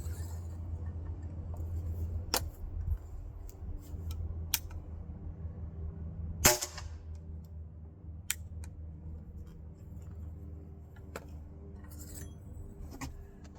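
A percussion cap fires in a brass pinfire case in an 8-bore pinfire rifle: one sharp pop about six and a half seconds in, with no powder or bullet behind it. It is a test that the converted case's pin sets off the cap. A few lighter clicks come before and after, over a steady low hum.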